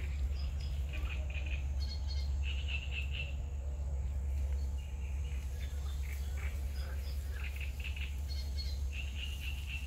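Birds chirping: many short, high-pitched calls repeat throughout, over a steady low rumble.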